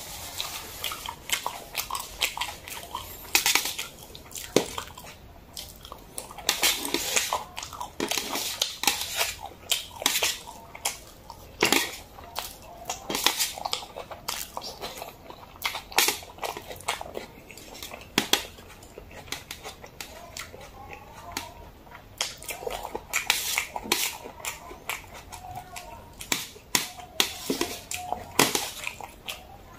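Close-miked eating sounds: jajangmyeon noodles slurped and chewed, with many irregular short, sharp wet clicks and smacks.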